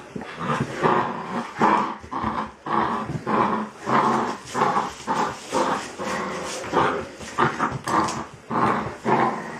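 Dog growling in a long run of short growls, about two a second.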